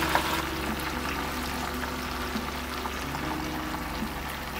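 Shrimp and sliced garlic sizzling steadily in hot olive oil in a frying pan, over soft background music.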